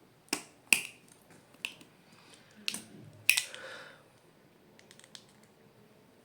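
Black electrical tape being pulled off its roll and wrapped around a battery: a series of sharp snaps and crackles, the loudest about three seconds in, followed by a short rasp.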